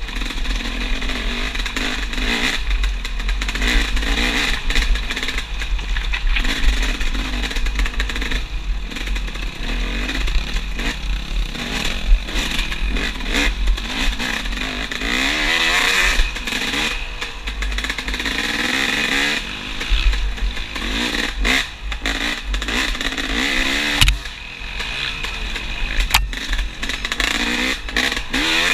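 Dirt bike engine revving up and down as it is ridden hard through tight trail sections, with a constant low wind rumble on the helmet-mounted microphone. Occasional knocks and clatter from the bike, the sharpest about four-fifths of the way through.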